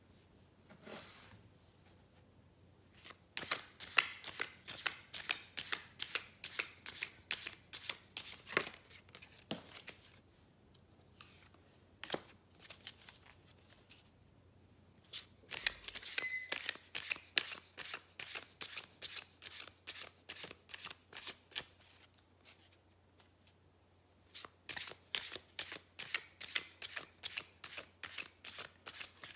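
A deck of cards shuffled by hand: rapid runs of crisp card-edge clicks in three spells, each several seconds long, with short pauses between.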